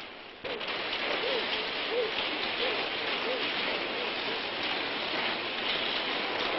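Many roller skates rolling fast on asphalt: a steady gritty rushing noise, with a brief dip about half a second in.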